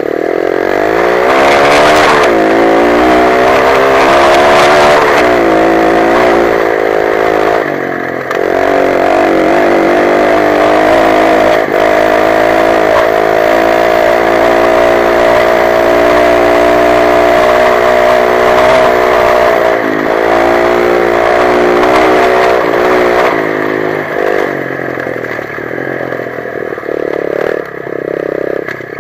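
125 cc dirt bike engine running under load, its pitch rising and falling with the throttle and gear changes. Near the end it runs lower and more unevenly, with short throttle blips.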